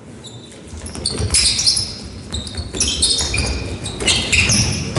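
Athletic shoes squeaking on an indoor court floor as handball players run and cut, repeated short high squeaks from about a second in. Underneath are dull thuds of footfalls and a handball bouncing.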